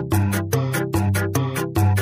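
Background music with a quick, steady beat and a bass line.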